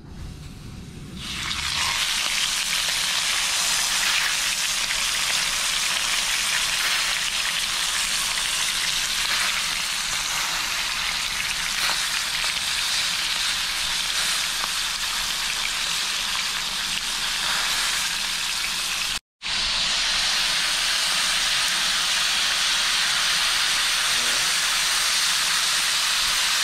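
Whole fish sizzling in hot oil in a frying pan: the hiss starts about a second and a half in as the fish goes in, then holds steady and loud. It breaks off for an instant about two-thirds of the way through and carries on unchanged.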